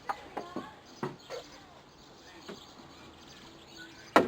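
Short bird chirps in the first second and a half, then a single sharp click near the end.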